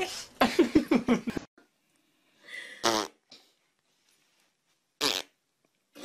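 A dog farting: a loud, sputtering run of rapid pops in the first second and a half. Two short, sharp noises follow later.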